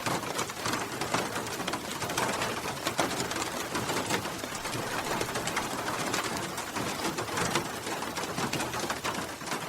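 Steady rain falling, a dense patter of drops striking a surface, with no thunder.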